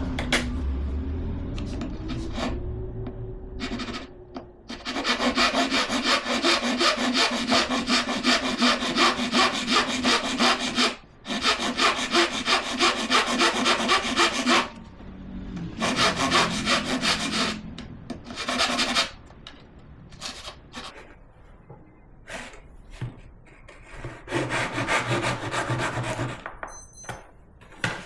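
Hand saw cutting wood in steady back-and-forth strokes, about two to three a second, in several bouts with short pauses between them.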